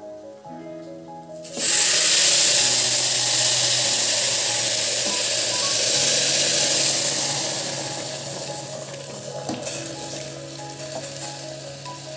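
Hot water poured into a pressure cooker onto freshly fried rice: a sudden loud sizzle and hiss about a second and a half in, slowly dying down as the pouring goes on. Background music plays throughout.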